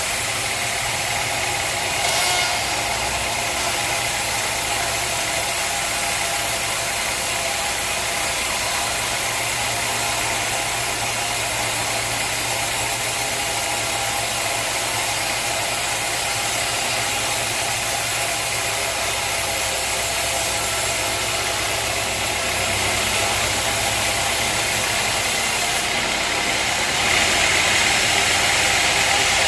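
Sawmill machinery running steadily: an engine-driven hum under a broad hiss, growing a little louder near the end.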